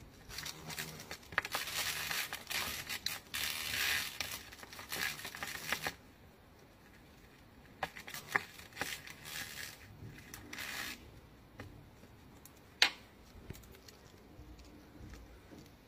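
Praying mantis chewing through a hornet's body, a close crunching and crackling of the hard shell. It comes in dense bursts for the first six seconds, then in sparser crackles, with one sharp click a little before the end.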